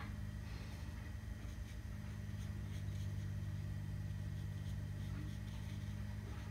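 A watercolour brush stroking paper, heard as soft, light ticks, over a steady low hum.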